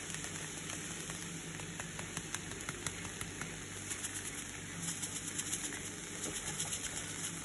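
An omelette frying in a pan: a steady sizzle with scattered crackling pops, and a cluster of quicker ticks about halfway through.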